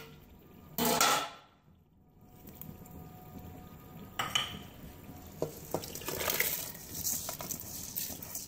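Metal cooking pots and utensils handled over a pot of boiling water: a loud, brief clatter about a second in, a splash as whole spices drop into the water at about four seconds, then scattered light metallic clinks and taps.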